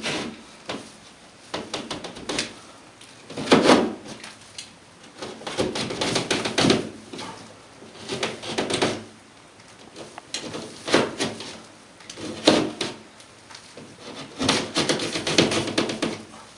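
Razor knife cutting through drywall along a scored square, in a series of repeated scraping strokes about one to two seconds apart.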